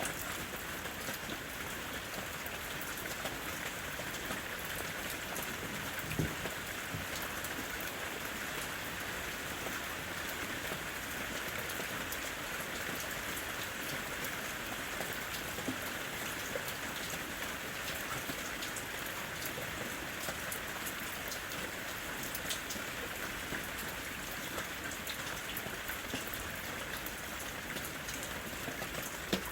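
Steady rain falling in a forest, an even hiss with many individual drops ticking, and a single louder heavy drop or knock about six seconds in.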